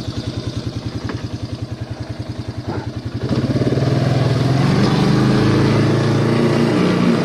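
Small four-wheeler's engine running slowly with a steady pulsing note, then revved up about three seconds in and held at higher revs, louder.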